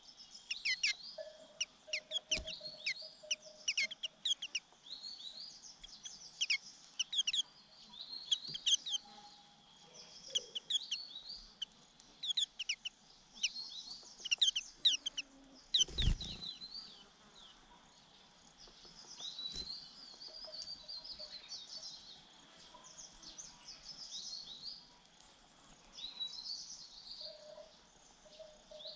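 White-eye chicks giving rapid, high begging chirps in repeated bursts while being fed. There is one dull thump about halfway through.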